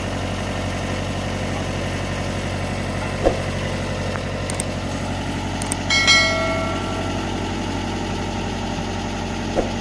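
Mitsubishi MS030 backhoe's diesel engine idling steadily. About six seconds in, a steel part clanks and rings briefly, with a couple of duller knocks before and after.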